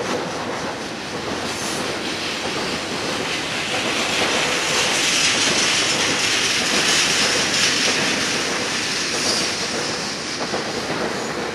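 Double-stack container train's freight cars rolling past, steel wheels running on the rails in a steady rolling noise. A hiss comes in about four seconds in, and the train is loudest through the middle, then eases slightly near the end.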